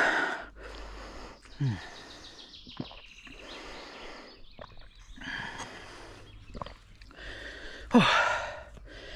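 A mountain biker out of breath and breathing hard, with voiced, sighing exhales that fall in pitch, one about a second and a half in and a louder one near the end.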